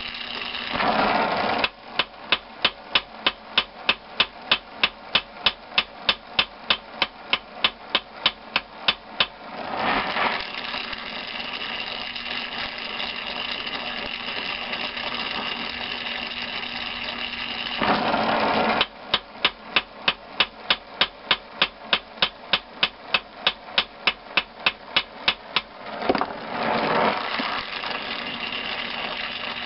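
Two runs of quick, evenly paced hammer blows, about four a second, on the torch-heated tip of a steel engine valve stem held in a vise. Each run lasts roughly seven seconds. Before, between and after the runs, the oxy-acetylene torch flame hisses steadily.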